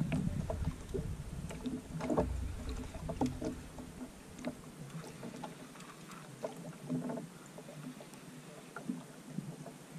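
Water lapping and light irregular knocks against a small wooden outrigger boat's hull, with a low rumble that fades out about four and a half seconds in.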